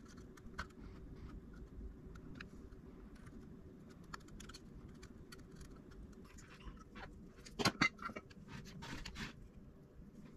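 Faint scattered clicks and scratches of desoldering work: a soldering iron tip and copper desoldering braid being worked against a solder joint on a circuit board, with a cluster of louder clicks about three-quarters of the way through.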